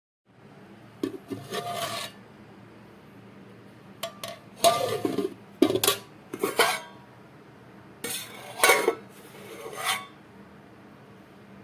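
Metal spoon scraping and clinking against a cooking pan, in several short bouts of strokes.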